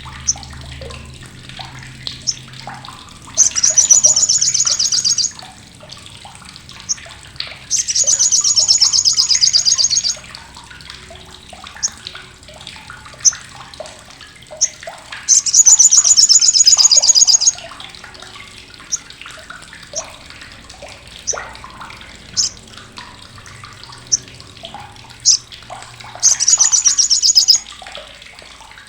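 Sogok ontong (sriganti) bird giving its harsh, sharp chattering 'crecetan': four loud bursts of rapid high-pitched notes, each about two seconds long, with single short chips between them, over a faint steady hiss.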